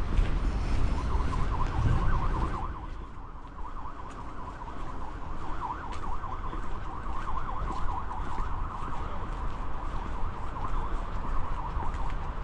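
A siren wavering rapidly in pitch, about three to four swoops a second, steady throughout, over a low rumble.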